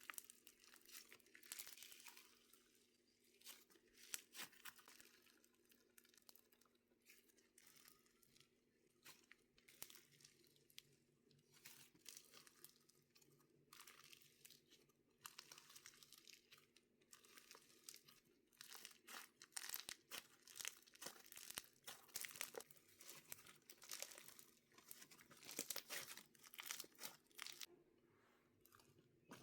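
Several slimes being mixed by hand, squished and stretched, giving faint bursts of rapid sticky clicks and crackles.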